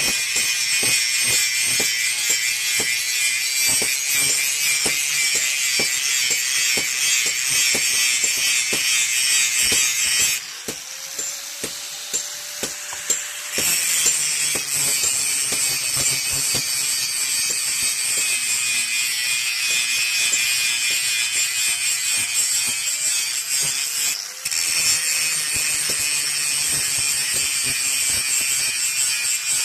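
A steel knife blade being ground against a grinding wheel: a loud, rasping grind that breaks off for about three seconds near the middle, leaving only a faint steady tone, and again briefly later before starting back up.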